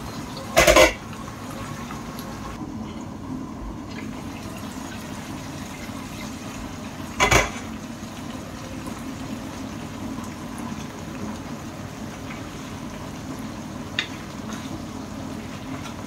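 A covered pot of pinakbet vegetables simmering, with a steady bubbling. Two brief loud bangs come about a second in and again about seven seconds in.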